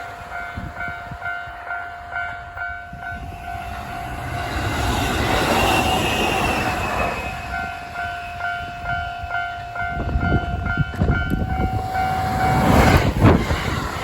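Japanese level-crossing warning bell ringing in quick repeated dings, two to three a second, while a train passes at speed over the crossing. The train's rumble and rapid wheel clacks build and are loudest near the end, as the bell stops.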